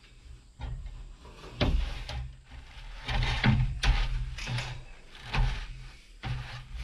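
Boots stepping across corrugated Galvalume metal roof panels, giving a run of irregular thumps as the panels give underfoot. A long sheet of metal ridge cap is carried along at the same time.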